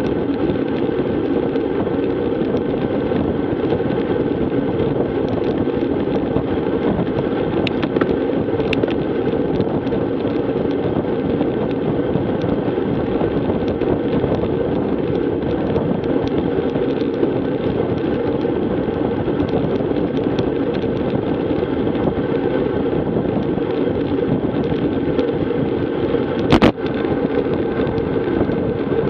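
Wind buffeting a bicycle-mounted action camera's microphone together with the rumble of road-bike tyres on a gravel road at about 21 mph, a steady noise. There is a sharp knock near the end.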